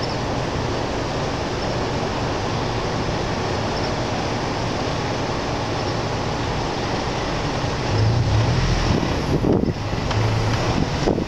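Steady loud road and wind noise of a car driving slowly, heard from inside the car. About eight seconds in it grows louder and more uneven, with a low rumble.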